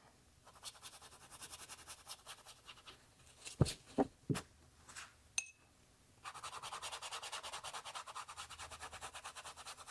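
Stiff Dick Blick Wonder White No. 2 scrubber brush scrubbing rapidly back and forth on wet Arches cold-pressed watercolour paper, lifting pigment and roughing up the paper's surface. A few light knocks and a short ping come near the middle, then the scrubbing resumes, steadier and louder, for the last few seconds.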